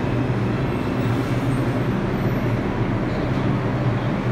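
New York City Subway 3 train of R62 cars pulling alongside the platform and slowing to a stop, with a steady low hum and rumble from the cars.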